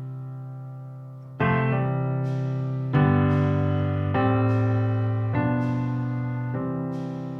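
Background music: slow, gentle piano chords, each struck and left to ring and fade before the next one, about one every second and a half.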